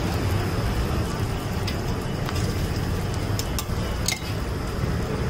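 Egg omelette batter sizzling on a flat iron griddle, with a few sharp clicks of a steel spoon against the plate as it is spread, over a steady rumble of street traffic.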